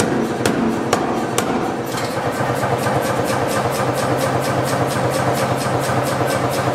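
Mechanical power hammer forging a hot steel bar: a few heavy blows about half a second apart, then the hammer runs on without striking, its motor humming under a fast, even ticking of roughly five to six a second.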